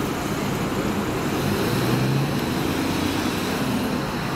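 Diesel engine of a Scania-chassised Caetano Levante 2 coach running as the coach pulls away, a steady low engine note that swells a little about two seconds in, over the hiss of road traffic.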